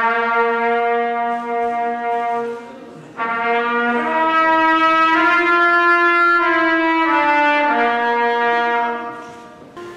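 A brass instrument holds long sustained notes into one end of a gas-filled Rubens tube, driving standing waves in the gas. It plays a low note for about three seconds, then after a brief break steps up to a higher held note and comes back down to the low note near the end.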